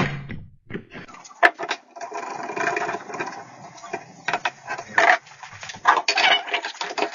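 Orange one-handed bar clamps being ratcheted tight on a wooden 2x4 cross brace: a run of trigger clicks, with knocks and scrapes as the wood is handled. A sharp click comes about a second and a half in.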